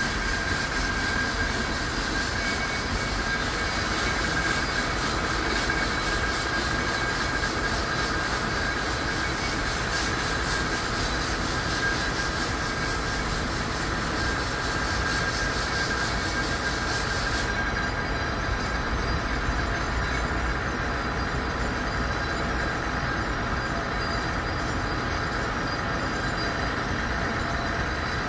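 Mount Washington Cog Railway steam locomotive No. 2, Ammonoosuc, under steam: a steady hiss of escaping steam with a thin high tone held throughout. The brightest top end of the hiss cuts off suddenly about two-thirds of the way through.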